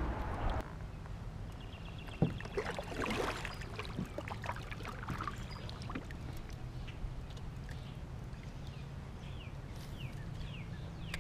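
Kayak paddle strokes: the blade splashing and dripping water with a few light knocks, mostly two to four seconds in. Near the end a bird gives several short falling chirps.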